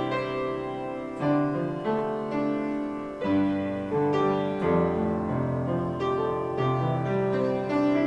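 Instrumental background music: a piano playing a melody over held chords, a new note or chord about every half second to a second.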